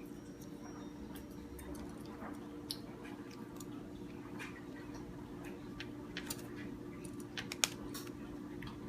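Scattered light clicks and taps of small plastic pieces being handled, a Kinder Surprise capsule and its toy, with a sharper click near the end, over a steady low hum.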